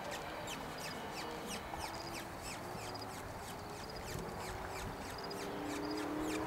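Birds chirping: a quick run of short, downward-sweeping high chirps, several a second, with a faint low steady drone underneath.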